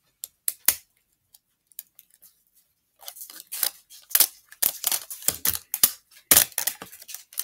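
Small plastic packaging handled by hand: a couple of sharp clicks, then from about three seconds in a dense run of crackling, clicking rustles.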